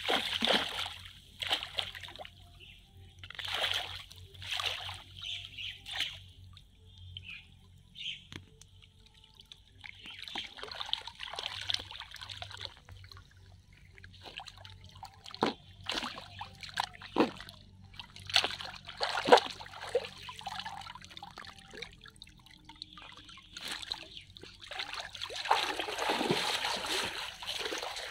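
Pond water splashing and sloshing as a big fish thrashes in a cast net and the heavy net is hauled out, with water trickling off it. The splashes come irregularly, the loudest right at the start, with a longer run of splashing near the end.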